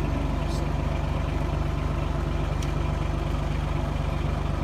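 Vehicle engine running steadily with a constant low hum, plus a couple of faint brief high squeaks.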